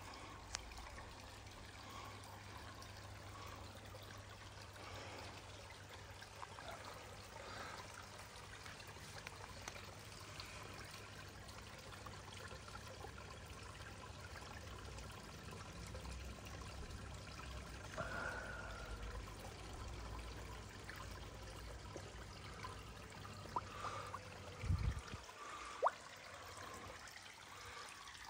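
Faint steady trickle of water running into a garden koi pond, with a few small clicks and a short low thump near the end.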